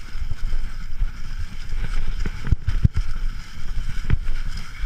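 Mountain bike riding down a rocky, leaf-strewn trail, heard from a camera mounted on the bike: steady wind rumble on the microphone and the hiss of tyres over dry leaves. Sharp jolts come as the wheels hit rocks, the loudest about two and a half, three and four seconds in.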